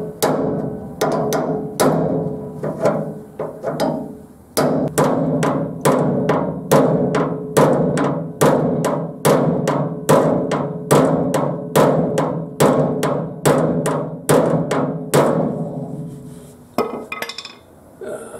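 Steel body hammer beating the sheet-steel hood panel of a 1950 Ford from underneath to straighten a warped section. The blows come about two a second, each ringing on briefly, then thin out and stop near the end.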